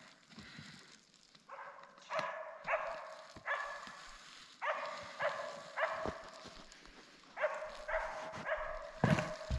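Dog whining in short, high yelps, about ten of them in quick bunches, each call starting sharply and fading away.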